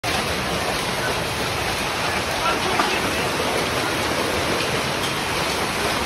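Heavy rain and strong wind in a storm, a loud steady rushing that does not let up.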